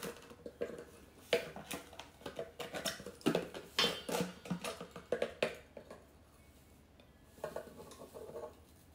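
Salt shaken and tapped out of a nearly empty plastic salt container into a metal tablespoon measure, giving a string of irregular taps, rattles and small clinks. They pause briefly and start again near the end.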